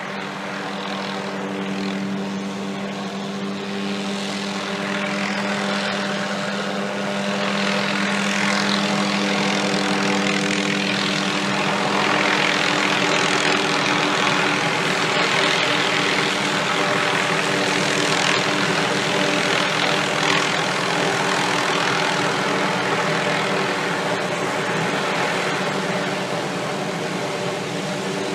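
Helicopter running close by with a steady droning hum under a broad rushing noise. It grows louder toward the middle, then eases off slightly near the end.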